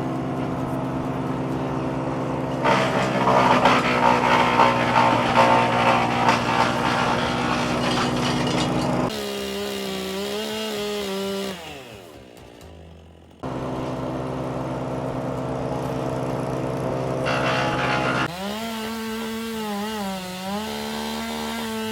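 Gas chainsaw running at high revs and cutting through maple wood, its engine pitch dropping and wavering between cuts. It dies away briefly in the middle, then starts again abruptly and keeps cutting.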